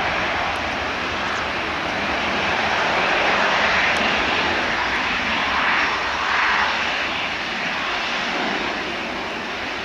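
Airbus A321's IAE V2500 turbofan engines running at high power with a loud jet rush as the airliner rolls down the runway, swelling a few times in the middle and easing slightly near the end as it moves away.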